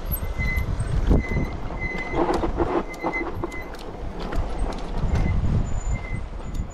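HeyBike Mars e-bike riding down a steep dirt and rock trail: tyres rattling and knocking over stones, with wind rumble on the microphone. A thin high squeal comes and goes, typical of the brakes being dragged on the descent.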